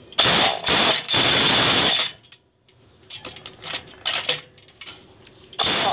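Corded electric impact wrench running on a truck's wheel nuts in three short bursts in the first two seconds, each with a thin high whine over the rattle. Light clicks and knocks follow as the socket is shifted, and one more short burst of the wrench comes at the very end.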